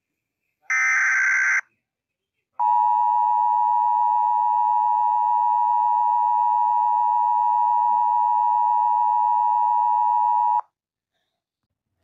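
Emergency Alert System broadcast tones for a Required Monthly Test: a one-second burst of digital header data about a second in, then the two-tone EAS attention signal, held steadily for about eight seconds before it cuts off.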